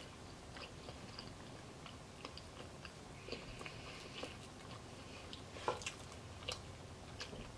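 Faint close-up chewing of soft cinnamon roll with the mouth closed, with small mouth clicks throughout. A plastic fork cuts the food on a plate, giving a few sharper clicks, the loudest a little before six seconds in.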